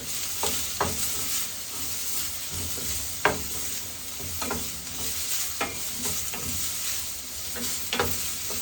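Sliced onions with ginger-garlic paste sizzling in hot coconut oil while being stirred in the pan. Several sharp scrapes and taps of the stirring spoon against the pan are heard, the loudest about three seconds in.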